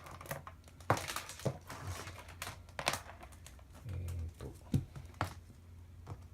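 Scattered clicks and rustles of a headphone plug and cable being handled, over a steady low hum, with a low thump about four seconds in.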